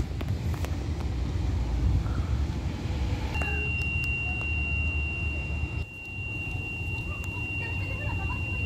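Low, steady rumble of a parked Collins school bus's engine idling, with a steady high-pitched electronic tone that comes on about three seconds in and holds.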